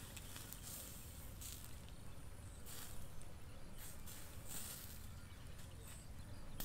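Fat dripping from a hang-roasting whole chicken onto hot embers, giving faint hissing sizzles in short spurts every second or so, over a low rumble.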